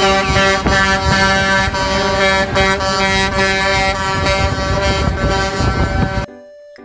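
Concrete mixer trucks' air horns sounding steadily, several tones at once, over truck engine noise, cutting off sharply about six seconds in.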